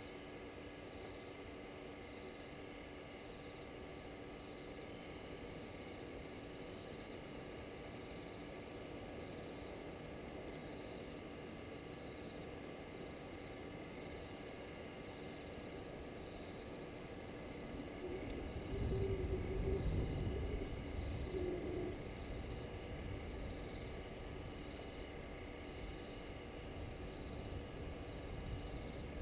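Night insect chorus: a dense, steady cricket trill with a shorter call repeating about every second and a half. About eighteen seconds in, a low rumble comes in for a few seconds.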